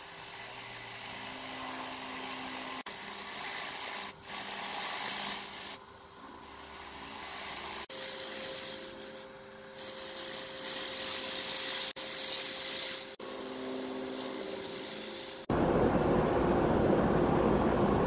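Wood lathe running with a turning tool cutting and scraping the spinning wood, in a series of short clips that change abruptly every few seconds, a steady motor hum under some of them. For the last two and a half seconds a louder, coarser noise.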